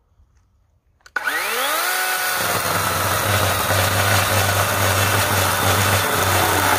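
DeWalt 12-inch brushless battery chainsaw switched on about a second in, its motor whine rising quickly as the chain spins up, then running steadily as the chain cuts through a 2x4.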